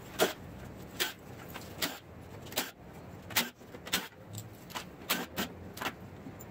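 A string of sharp metallic clinks, roughly one or two a second, as the half-inch valve cover bolts on a Ford IDI diesel V8 are taken out with a cordless tool.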